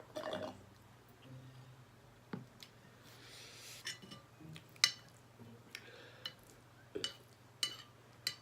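A utensil clinking against a dish during eating: a string of short, sharp clinks, the loudest about five seconds in, with a soft hiss of noise around the three-second mark.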